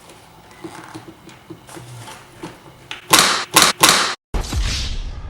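Plastic air intake parts being worked loose by hand: scattered small clicks and knocks, then three loud rasping scrapes in quick succession about three seconds in as the stubborn fitting is yanked free.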